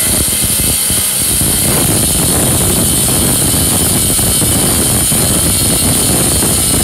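Angle grinder running under load, its disc cutting into the metal casing of a fridge compressor, with a steady high whine over the grinding noise.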